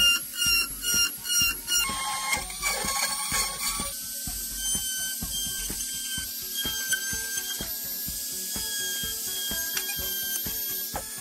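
Dremel rotary tool running with a small bit, cutting a slot into a plastic enclosure. It pulses unevenly for the first couple of seconds, then settles into a steady high whine with rapid ticking as the bit cuts the plastic.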